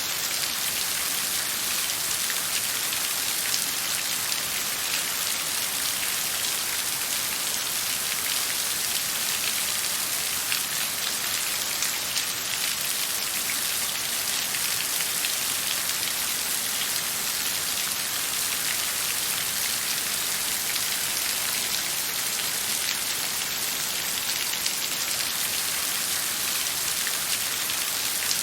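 Steady rain falling, an even hiss of many drops with faint scattered pattering.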